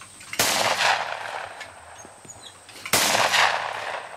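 Two shotgun shots at clay targets, about two and a half seconds apart, each trailing off in a short echo.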